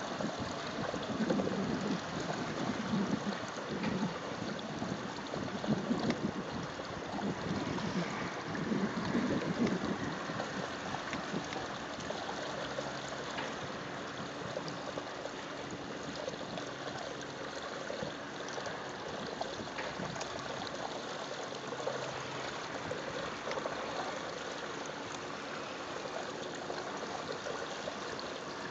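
Water rushing and lapping along the hull of a moving boat: a steady noisy wash, with some uneven low buffeting during the first ten seconds.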